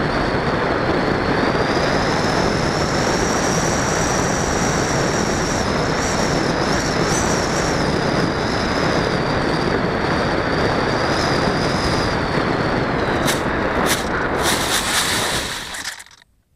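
Rushing air over a Multiplex Easystar 2 RC plane's onboard camera, with the thin whine of its electric motor slowly rising and dipping in pitch during a low landing approach. Near the end come a few sharp knocks and a rustling scrape as it touches down and slides through the grass, then the sound cuts off.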